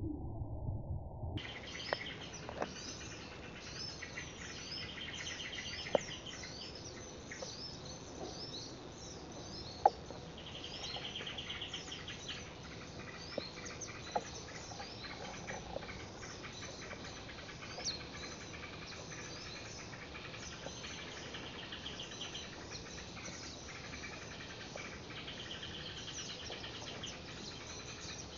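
Small songbirds chirping and calling, with bursts of rapid trills every several seconds and a few sharp clicks.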